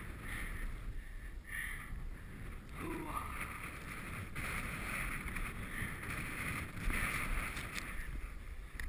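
Skis hissing and scraping over packed snow in repeated turns, with wind rushing over the microphone.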